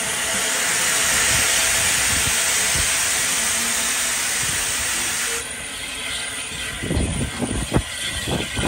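Steam locomotive letting off a steady hiss of steam that cuts off abruptly about five seconds in. A few irregular low thumps follow near the end.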